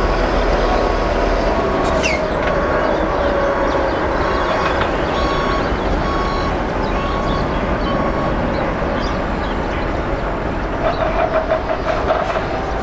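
Boeing 777-300ER's GE90 jet engines heard from off the runway during the landing rollout: a loud, steady rumble with an engine whine that falls slowly over the first few seconds as the engines spool down.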